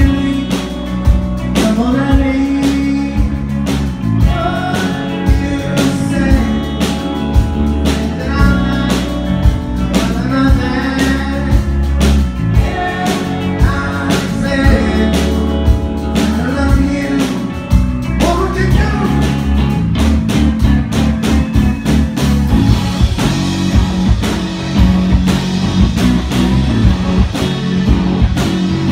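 Rock band playing live: a lead vocal over electric guitars and a drum kit, with a steady beat. About two-thirds of the way through, the singing gives way to an instrumental passage of guitars and drums.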